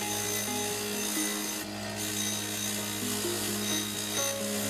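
Bench-grinder wire wheel spinning against a drive-belt tensioner, scrubbing grime off the metal: a steady rasping hiss over the grinder motor's hum.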